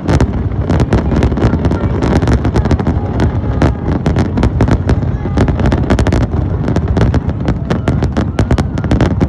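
Fireworks display: a dense, continuous barrage of bangs and crackles, many a second, over a steady low rumble.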